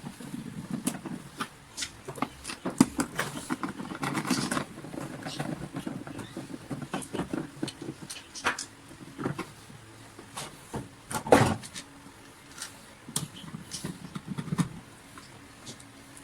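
Plastic vacuum cleaner housing being handled and fitted back together: irregular clicks, taps and knocks of plastic parts, with a sharp knock about three seconds in and the loudest knock about eleven seconds in.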